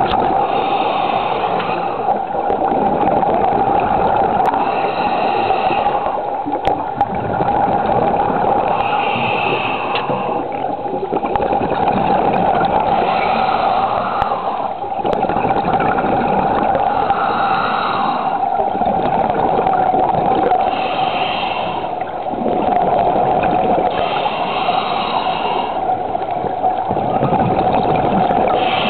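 Underwater scuba breathing through a regulator: hissing inhales and bubbling exhales repeating about every four seconds, over a steady hum.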